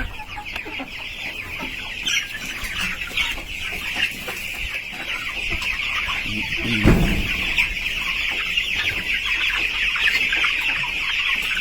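A crowded flock of chickens cheeping and clucking all together in a steady, dense chatter. There is a single thump about seven seconds in.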